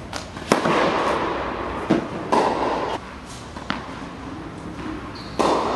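Tennis racket striking the ball on a serve, a sharp crack about half a second in, followed by a few fainter knocks and stretches of rustling noise in a large indoor tennis hall.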